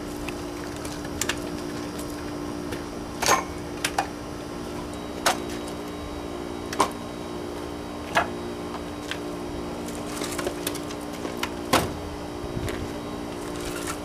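Split firewood pieces clunking against each other as they are set one at a time onto a woodpile, a sharp wooden knock every second or two, over a steady low hum.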